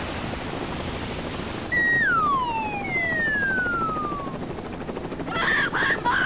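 Added sound effects: a rushing whoosh, then about two seconds in a long whistle that slides steadily down in pitch, like a cartoon falling sound, and near the end a string of short, choppy pitched sounds.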